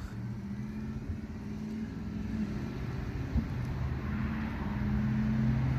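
A motor vehicle's engine humming steadily and growing gradually louder, with one faint knock a little past halfway.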